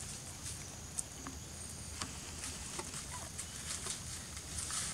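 Forest ambience: a steady high insect hiss, with scattered small clicks and ticks from close by.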